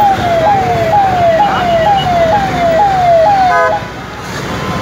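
Emergency vehicle's electronic siren sounding a rapid repeating falling sweep, about two per second. It cuts off abruptly about three-quarters of the way through with a short blip.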